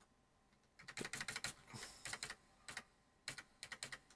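Computer keyboard keys being tapped over and over, the numpad-plus key pressed repeatedly with Ctrl held, in quick runs of clicks. The taps come in two runs, one about a second in and one around three seconds in, with short pauses between.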